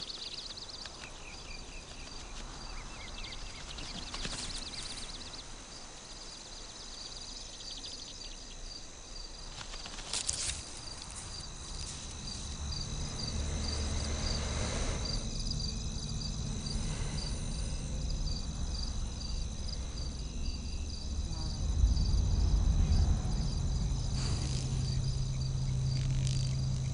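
Insects chirping in a regular pulsing trill, like crickets, with a few brief soft noises. About halfway through, a low steady rumble comes in and grows louder toward the end.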